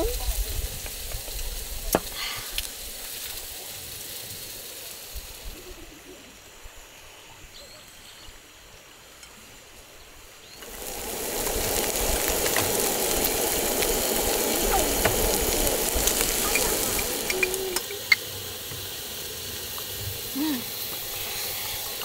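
Food sizzling in a hot pan. The sizzle swells suddenly and loudly about halfway through, then eases near the end, with a few light clicks.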